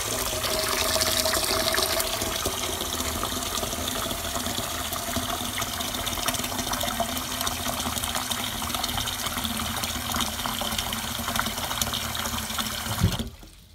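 Cold tap water running steadily into a three-litre pot as it fills. The flow cuts off near the end.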